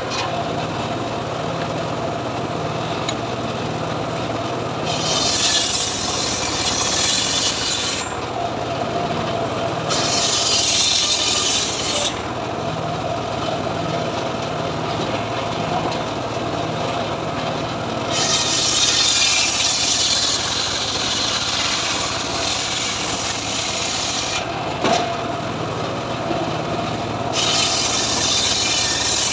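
Home-built circular saw bench ripping lamtoro (leucaena) logs into boards. The blade runs steadily with a low machine hum, and breaks into a louder, higher cutting rasp each time a log is pushed through, four times, with one sharp click near the end.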